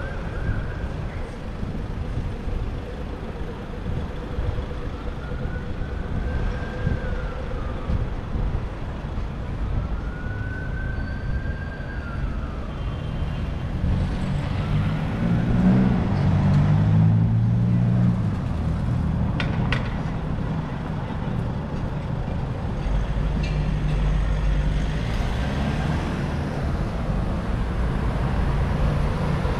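Busy city-street traffic. An emergency-vehicle siren wails slowly up and down three times over the first dozen seconds. A vehicle engine then passes close by, the loudest part, and a low engine rumble carries on near the end.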